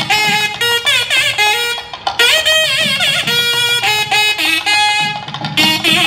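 Wedding music: a reed wind instrument plays a melody full of sliding, wavering ornamented notes.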